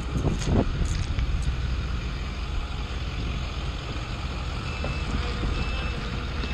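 Cat propane forklift running with a low engine rumble. About five seconds in, its reversing alarm starts beeping in even, evenly spaced pulses as it backs up.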